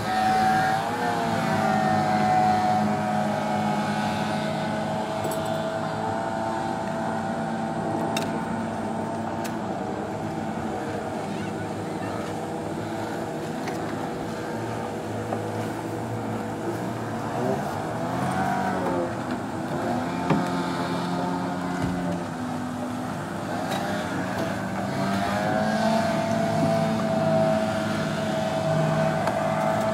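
Outboard motors of several racing boats running hard at high revs, their pitch rising and falling a few times as the boats pass and change speed.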